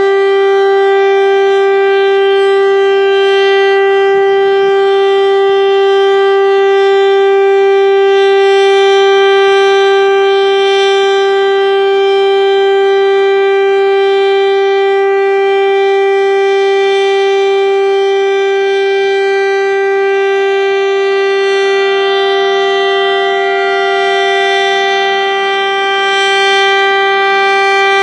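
Federal Signal STL-10 single-tone outdoor warning siren sounding during a routine test. It holds one steady, unwavering tone, dipping slightly in loudness near the end.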